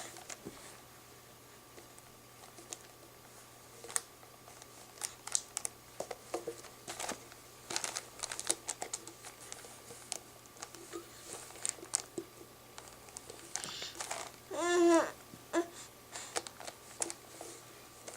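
A seven-month-old baby gives one short, high chirping squeal that rises and falls in pitch, about three-quarters of the way through. Scattered small clicks and taps are heard throughout.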